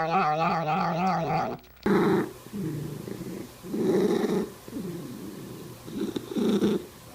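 A domestic cat's long, wavering yowl cuts off suddenly just under two seconds in. It is followed by a series of short, low, rough rumbling sounds from a cat, roughly one a second.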